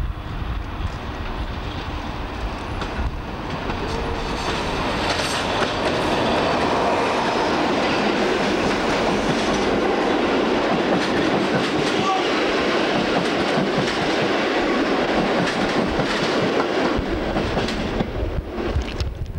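Passenger coaches of a diesel-hauled train rolling past close by, their wheels clattering over rail joints. The noise builds over the first few seconds, stays loud, and eases off near the end as the last coach goes by.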